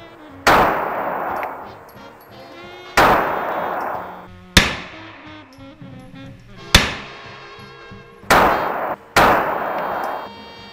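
Six 9mm pistol shots, unevenly spaced, each a sharp bang with an echo that dies away over about a second in an indoor shooting range.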